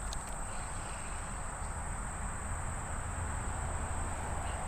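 Summer insect chorus: a steady high-pitched drone, over an even rushing hiss of creek water.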